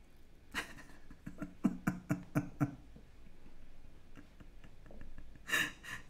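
A soundboard clip played with an echo effect: a quick run of short, stuttering, voice-like fragments for about two seconds, then a brief burst near the end.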